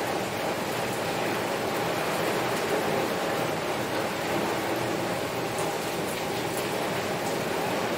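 Heavy rain falling steadily on a window, a dense even patter with a few sharper single drops.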